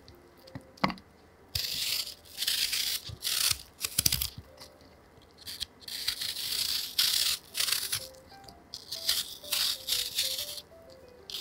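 Paring knife cutting the skin off a raw apple wedge: a series of crisp scraping strokes, each up to a second or so long, with short pauses between. Soft background music plays underneath.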